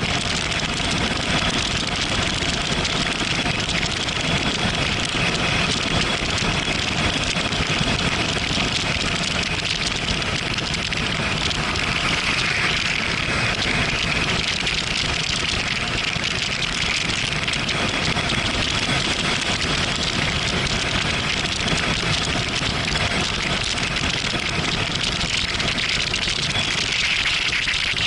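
Steady rush of wind over the microphone with the Yamaha MT-07 Tracer's 689 cc parallel-twin engine running under it at a constant motorway cruise, the engine still in its break-in stage.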